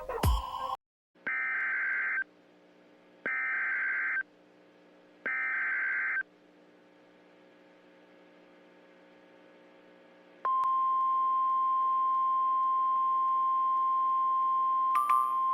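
Emergency Alert System SAME header: three one-second bursts of screechy digital data tones about a second apart, after a short downward sweep at the start. About ten seconds in, the steady single-pitch 1050 Hz National Weather Service warning alarm tone begins and holds.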